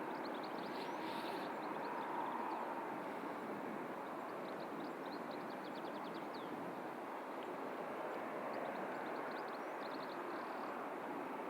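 Steady distant airport noise with no single event standing out. A small bird chirps in quick, high trills three times over it: at the start, in the middle and near the end.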